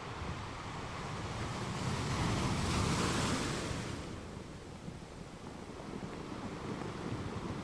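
Ocean surf: a wave swells up to break about three seconds in, then washes out and ebbs away.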